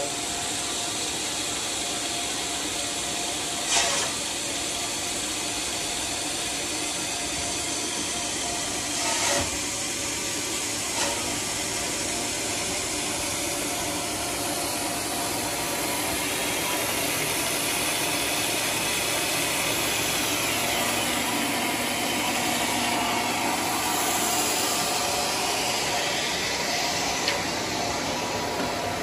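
Homemade sawmill running steadily as an old coconut log on the rail carriage is fed through the blade, a continuous machine whir with a few short knocks.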